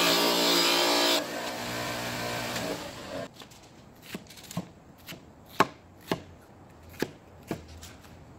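An electric bench motor with a buffing wheel runs steadily for about the first three seconds, then stops. After that a hand-forged Korean nadae chopper slices through a red onion, and each cut taps onto the plastic cutting board, about twice a second.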